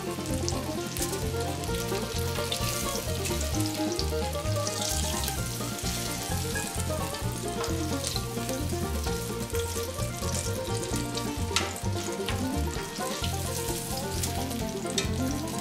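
Battered chicken wings frying in a pan of hot oil, a continuous sizzle, while tongs lift pieces out. Background music with a steady bass line plays underneath.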